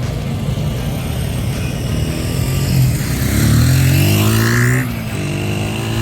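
1981 Honda XR100's single-cylinder four-stroke engine pulling under way, its pitch climbing steadily from about two seconds in. Near the end the pitch drops sharply, then climbs again.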